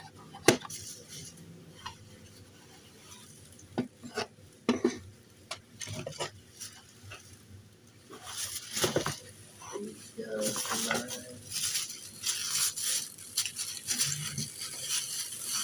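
Small hard parts of a microphone kit clicking and knocking as they are handled, then from about eight seconds in a steady crinkling of plastic packaging being opened.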